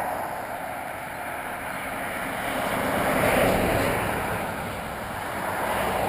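A car passing on the road nearby, its tyre and engine noise swelling to a peak a little past halfway and then fading away.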